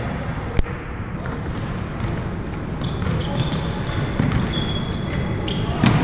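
Basketball dribbled on a hardwood gym floor, with short high-pitched sneaker squeaks and a sharp smack about half a second in.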